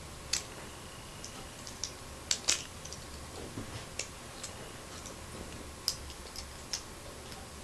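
Irregular light clicks and taps of small metal and plastic Beyblade parts being handled and fitted together in the fingers, with a few sharper clicks about half a second in, around two and a half seconds in, and near six seconds in.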